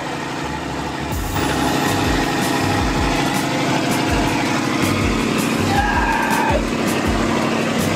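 Laotian slow boat's engine running steadily, heard on board with rushing noise over it; it gets louder about a second and a half in.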